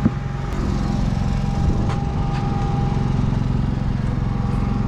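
GenMax GM10500iETC tri-fuel inverter generator, its 458 cc four-stroke OHV engine running steadily on propane, with a thin steady whine above the engine hum. A single sharp click right at the start.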